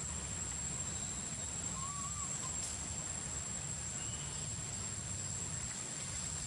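Outdoor ambience: a steady high insect drone over a low wind rumble, with one short, faint wavering chirp about two seconds in.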